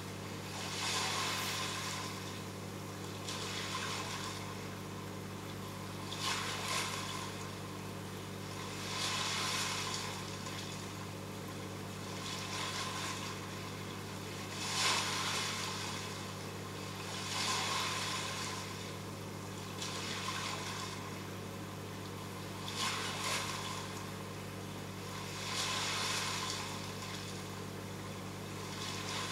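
Reef aquarium equipment running: a steady low pump hum, with swells of rushing water coming and going every two to three seconds.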